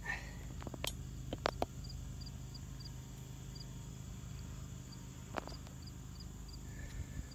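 Faint high insect chirps, about three a second in two runs, over a steady low hum. A few sharp clicks come in the first two seconds and one about five seconds in.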